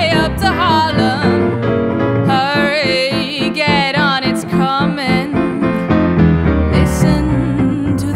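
A jazz trio of female voice, piano and guitar playing a swing standard, with the singer's line bending and wavering over piano chords.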